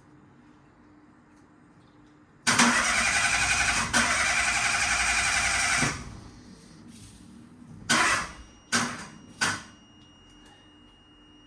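Starter motor cranking the Peugeot 107's engine for about three and a half seconds without it catching, then three short bursts of cranking. The car is on a jump pack after work on its ignition barrel and is not starting.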